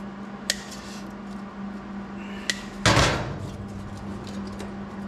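Hand shears snipping a cardboard template, two sharp clicks, then a louder knock and rattle about three seconds in as the template is pushed up against the sheet-metal firewall. A steady low hum runs underneath.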